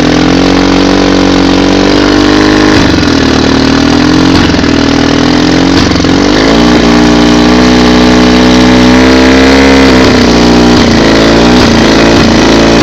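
Johnson outboard engine running at a low, steady speed, stumbling briefly every few seconds. Several short dips in its note are the 'coughing' whose cause the owner does not know.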